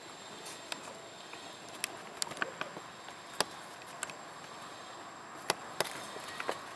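Irregular sharp clicks and snaps, about ten spread over several seconds, over a steady outdoor hiss and a thin steady high tone.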